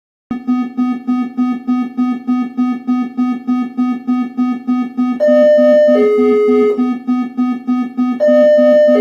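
Synthesized emergency alert alarm that starts abruptly: a low buzzing tone pulsing about four times a second. Twice, a higher two-note falling beep sounds over it.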